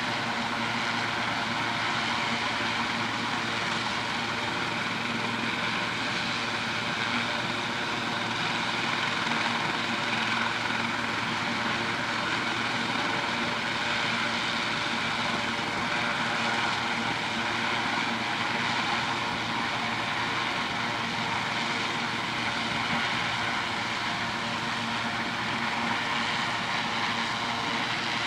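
Air ambulance helicopter running on its helipad before lift-off: the turbine engines and turning rotor make a steady whine over a constant rush of noise, holding the same pitch and loudness throughout.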